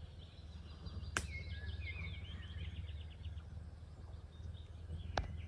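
Forest ambience: a songbird sings a short run of twittering trills and chirps between about one and three seconds in, over a steady low rumble. Two sharp clicks, one about a second in and one near the end.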